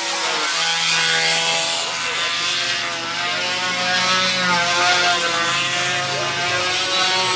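Engine of a control-line aerobatic (F2B) model aircraft running in flight, its pitch wavering up and down.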